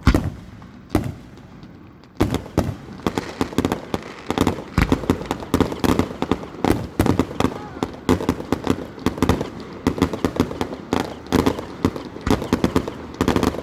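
Aerial fireworks: a loud bang, a second one about a second later, then from about two seconds in a dense rapid barrage of bangs and crackles, many per second.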